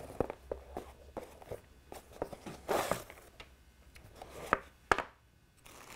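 Quiet handling sounds as string is pulled off a small cardboard box and the box is handled on a tabletop: light rustles and taps, a louder scrape about halfway through and a sharp tap near the end.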